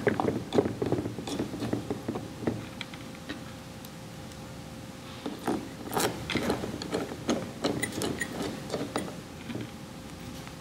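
Screwdriver turning screws back into the head of a KNF diaphragm pump: irregular small clicks, taps and scrapes of metal on metal, pausing for a couple of seconds about a third of the way in, over a faint steady hum.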